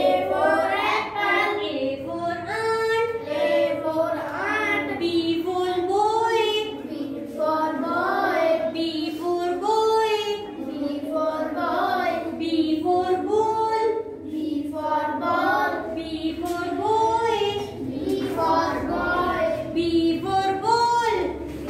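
Young children singing a classroom rhyme together with a woman, in a steady chanted melody.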